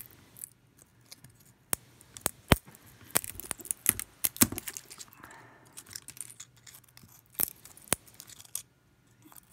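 Corona hand pruners cutting into a dry pine cone: a run of sharp cracks and crunching snaps as the woody scales split. There are a few single snaps, then a dense cluster of cracks about three to four and a half seconds in, and two more single snaps later.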